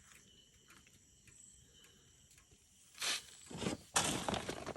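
Low quiet at first. About three seconds in, a burst of irregular handling noise starts as hands rummage through a pile of freshly caught fish.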